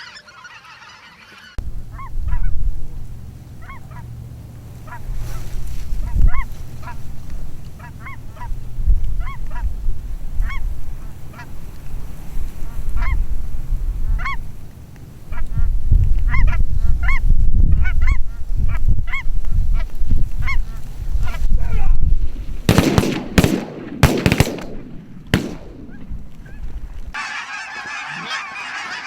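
Geese honking, single honks every half second to a second, over heavy wind rumble on the microphone. A quick run of sharp bangs comes about 23 to 25 seconds in. Near the end a dense chorus of many geese honks together.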